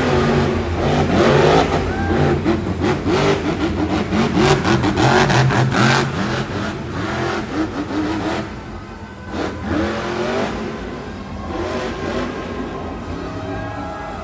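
El Toro Loco monster truck's supercharged V8 engine revving hard through a freestyle run, its pitch sweeping up and down again and again. It eases off briefly about nine seconds in, then revs up again near the end as the truck stands up on its rear wheels.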